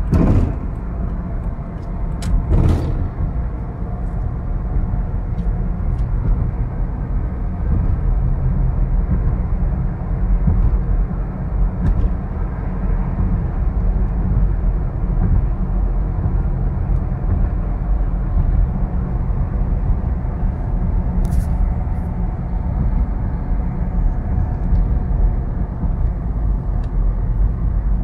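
Steady low rumble of road and engine noise inside a moving car's cabin, with a couple of brief knocks in the first few seconds.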